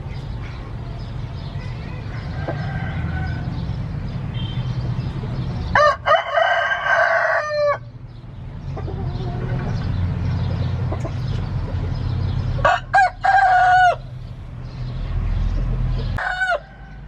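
A rooster crowing twice, long crows about six and thirteen seconds in, with a shorter call near the end, over a steady low rumble.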